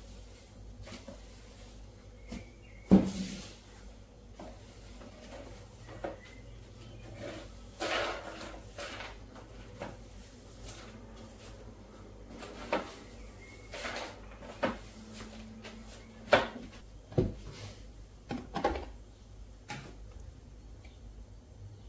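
A broom sweeping over ceramic floor tiles: bristles brushing, with scattered knocks of the broom head and a plastic dustpan against the floor, the loudest about three seconds in.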